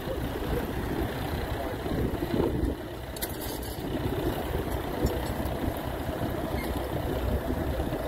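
Vintage tractor engine running steadily as it pulls a trailed plough through the ground.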